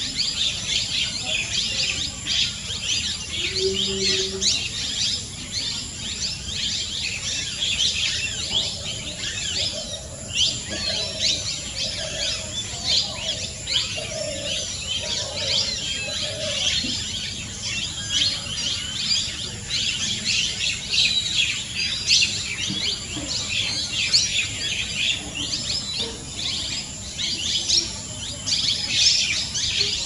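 Wild birds chirping in a dense, continuous chorus of short high chirps. A steady high insect-like whine runs underneath.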